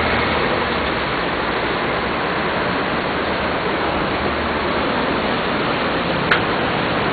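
Steady rushing background noise with no clear pitch, and a single sharp click about six seconds in.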